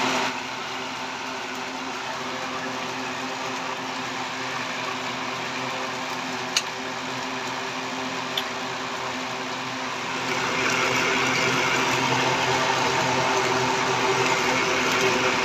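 Small 12 V DC fan motor of a homemade drum air cooler running steadily, a humming whir that grows louder about ten seconds in. Two faint ticks come in the middle.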